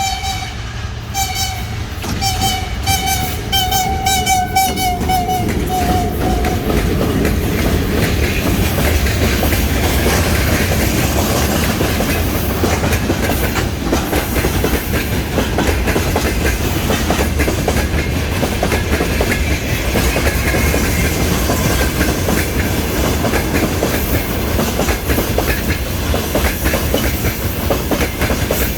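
A VL11M electric locomotive's typhon horn sounds a string of short, loud blasts over the first six seconds or so, dropping slightly in pitch on the last ones. Then a freight train rolls past with steady wheel clatter over the rail joints.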